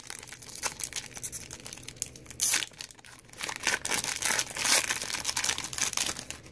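Foil trading-card pack wrapper crinkling and tearing as it is pulled open by hand, with louder rips about two and a half and nearly five seconds in.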